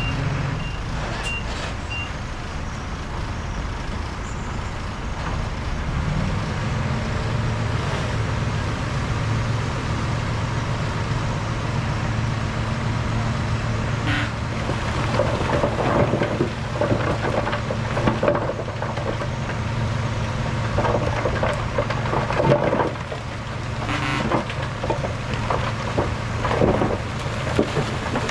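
Heavy diesel earthmoving machinery running steadily, its engine note stepping up about six seconds in and then holding. A reversing alarm beeps two or three times a second at the start and stops after about two seconds. From about halfway on there are irregular clanks and knocks.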